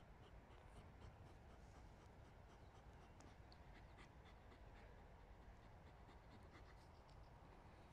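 Faint panting of a Belgian Malinois lying down, tongue out, worn out after a run of exercises.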